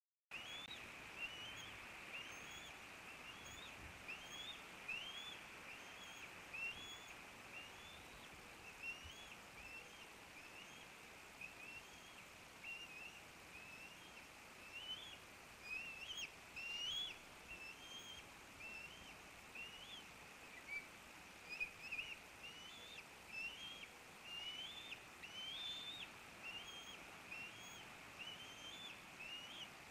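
Bald eaglet cheeping: a long run of short, high-pitched calls that each sweep up and drop, one or two a second, the food-begging calls of a young eagle with an adult on the nest. A steady hiss from the nest-cam microphone lies under them.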